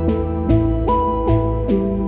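Calm instrumental background music with a steady beat, about two and a half beats a second, over held chords and a bass line.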